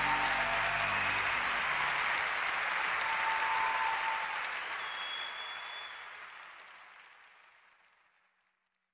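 Audience applause at the end of a song, fading out over the last few seconds.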